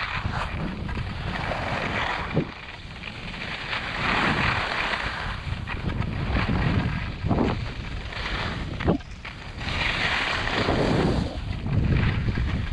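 Skis carving on snow, a swelling scrape with each turn every two to three seconds, over low wind buffeting on the microphone, with a few sharp knocks.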